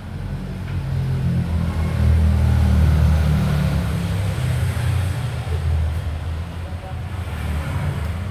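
Low engine rumble of a passing road vehicle, building up to its loudest about two to three seconds in and then easing off.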